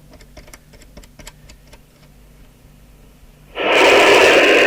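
Several light clicks from the radio's knobs and switches, then, about three and a half seconds in, a sudden loud rush of hiss from the Harrier CBX FM CB radio's speaker: the receiver's open-squelch noise.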